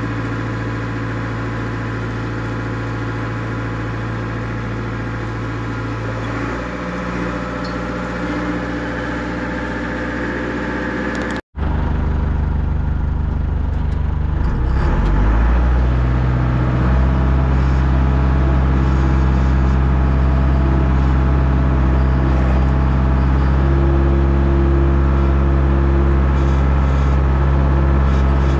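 Diesel engines of heavy earthmoving equipment running steadily while stone is spread. About a third of the way in the sound breaks off sharply. A louder, deeper engine follows; it picks up in pitch a few seconds later and then holds.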